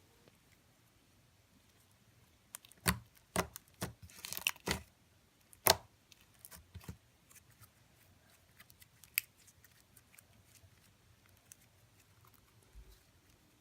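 Crunchy slime being handled: a short run of sharp crackles and pops in the middle, then only a few faint ticks.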